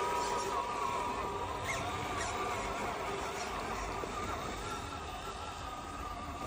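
RC rock crawler's electric motor and gear drive whining as it creeps along, the pitch wavering slightly with the throttle, with a few faint clicks.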